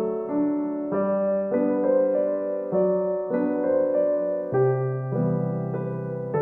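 Background piano music, a gentle melody of held chords changing about every half second.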